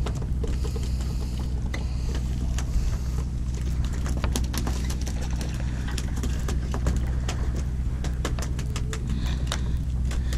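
Steady low drone of the sportfishing boat's engine, with scattered sharp clicks and ticks, more of them from about four seconds in.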